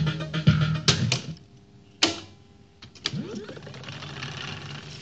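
Dokorder 6020 reel-to-reel tape deck: guitar music playing from the tape cuts off about a second in. Three sharp clunks of the transport mechanism follow, then a steady mechanical whir as the reels turn.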